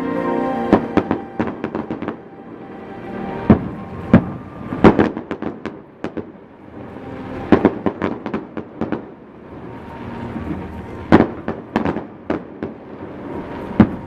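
Fireworks going off in irregular clusters of sharp bangs, some bursts crackling in quick runs, with music playing underneath near the start.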